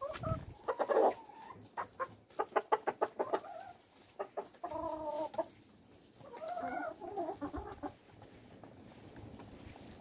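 Hens clucking around feed, with a quick run of clucks and then a couple of longer drawn-out calls.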